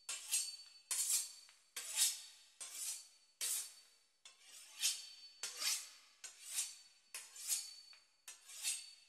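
A knife sawing through the crisp pastry crust of a beef Wellington: faint rasping strokes, about one every 0.7 seconds.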